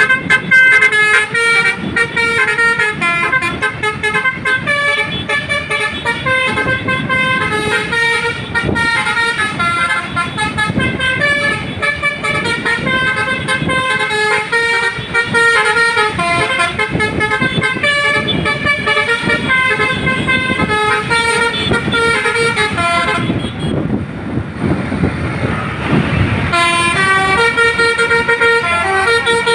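Basuri 'telolet' multi-tone musical horn on a tour bus playing quick stepped melodies, its notes changing several times a second. Over twenty seconds in, the tones stop for about three seconds of plain noise, then the horn melody starts again.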